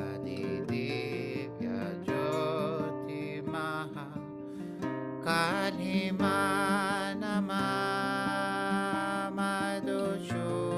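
A man singing a slow devotional chant over acoustic guitar, his voice wavering on long held notes.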